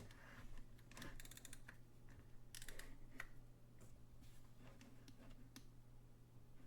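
Faint small clicks and taps from handling a vintage Jaeger-LeCoultre alarm clock, with a quick run of fine clicks about a second in, another short run at about two and a half seconds, then a few single clicks.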